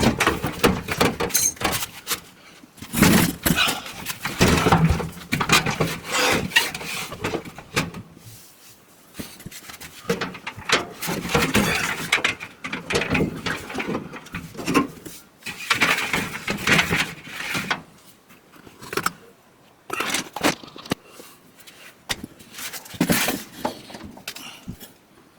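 Hand-working noise inside an open dryer cabinet: irregular clunks, scrapes and rattles of the sheet-metal drum and parts as the drive belt is fitted around the drum and onto the idler pulley, with a couple of brief pauses.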